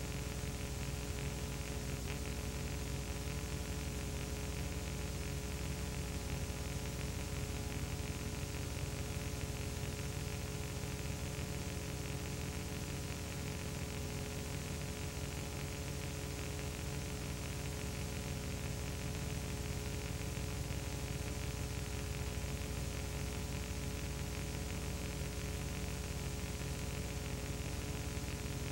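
Steady hiss with a low electrical hum and several faint steady tones, unchanging throughout: the noise floor of a silent home-movie film transfer, with no other sound.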